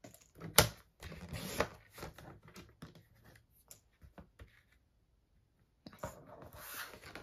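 Sliding paper trimmer and cardstock being handled: a sharp click about half a second in, then scraping slides of the cutter head and rustles of the paper with light taps, and another longer scrape building near the end.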